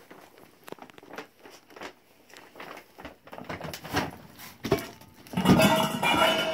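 Paper gift bag and tissue paper rustling and crinkling as they are handled, with scattered short crackles and taps. About a second before the end comes a louder sound with a held pitch.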